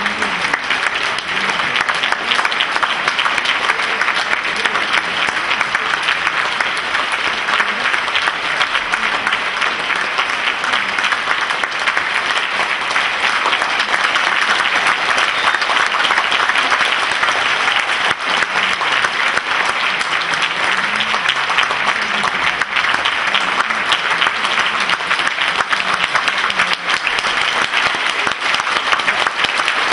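Large audience applauding steadily in a concert hall: dense, even clapping that holds without a break.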